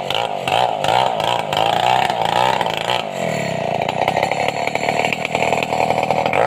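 Stihl two-stroke chainsaw running under load while cutting through a large sengon log, its engine pitch wavering up and down as the chain bites. It sags briefly about halfway through, then recovers.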